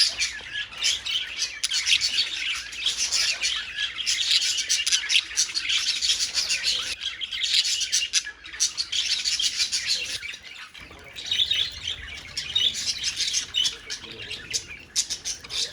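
Budgerigars chattering and chirping in a rapid, continuous stream of warbles and tweets, easing briefly about two-thirds of the way through before picking up again.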